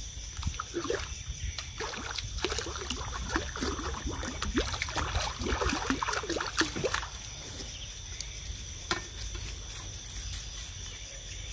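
Shallow water in a weedy pool splashing and sloshing in irregular short bursts as it is worked by hand and machete, dying away about seven seconds in. A steady high trilling of night insects runs underneath.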